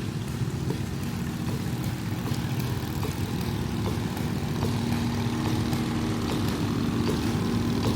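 Small engine running steadily and loudly through a tall exhaust pipe, a fast even racket that grows a little louder about halfway through.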